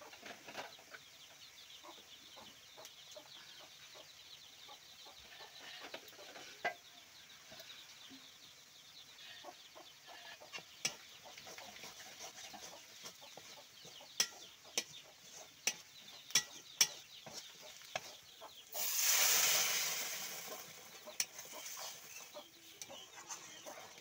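A metal spatula scraping and clinking against an aluminium pot as onions and spices fry with a faint sizzle. About 19 seconds in, liquid goes into the hot pot with a loud, sudden hiss that dies away over a few seconds.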